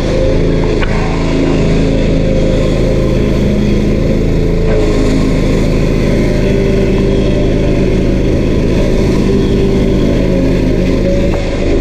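Small stump grinder's 13 HP Honda single-cylinder engine running steadily at high throttle, its pitch wavering slightly and dipping briefly twice, as under a changing load.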